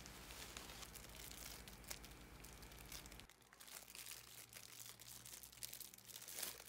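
Faint crinkling and crackling of plastic packaging, bubble wrap and a clear plastic bag, handled and pulled open by hand.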